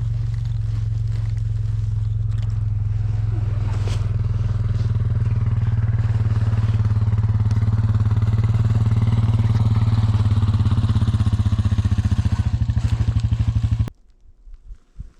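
A small engine running steadily at high speed, its level creeping up slightly, then stopping abruptly about fourteen seconds in.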